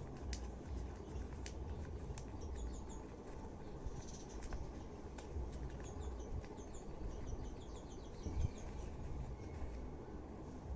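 Small birds chirping in quick high runs over a steady low rumble, with a few faint clicks.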